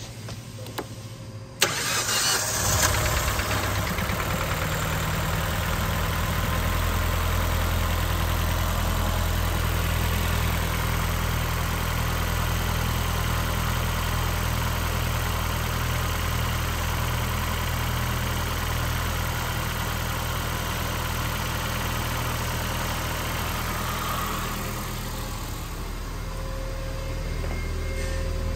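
2011 Ford Fiesta's 1.6-litre four-cylinder engine starting up less than two seconds in, then idling steadily. It is a little fainter near the end.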